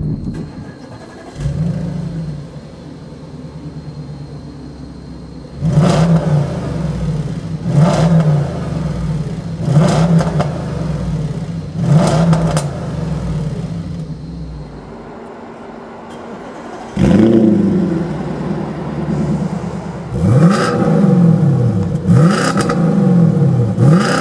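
Audi S5 (B8) 4.2 FSI V8 idling and revved in four sharp blips about two seconds apart on its stock exhaust. After a quiet gap it starts with a rising flare, then is revved in quicker, closer-spaced blips through an Armytrix valvetronic cat-back exhaust with the valves closed.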